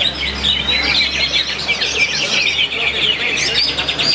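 Several caged songbirds singing at once in a bird-singing contest, a dense, unbroken tangle of rapid chirps and trills.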